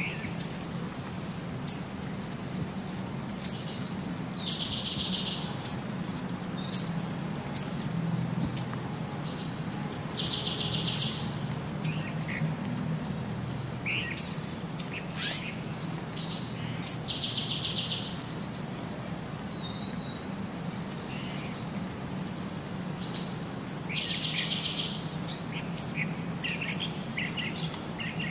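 Small songbirds chirping: many short high chirps, and a buzzy trill that recurs about every six and a half seconds, over a low steady hum.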